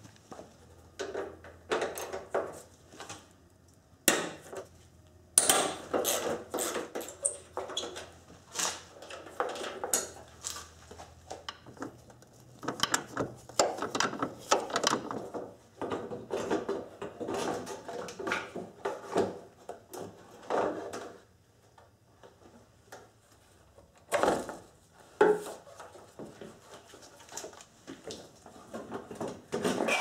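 Plastic headlight assembly of a 1997 Nissan Maxima being worked loose and pulled out of its opening by hand: irregular clicks, knocks and scrapes of plastic against the car body, with a lull of a few seconds about two thirds of the way in.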